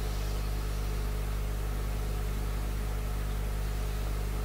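Steady low hum with an even hiss: room tone during a silent pause, with no change from start to end.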